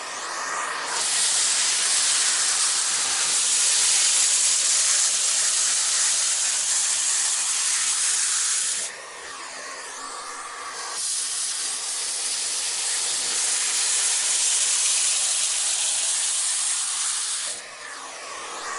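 Vacuum cleaner running, mostly the hiss of rushing air. The hiss holds steady for several seconds at a time, eases off about nine seconds in and again near the end, then surges back.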